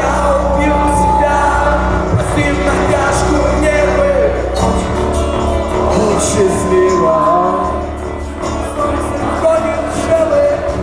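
Live rock band playing loudly, with a voice singing over the music.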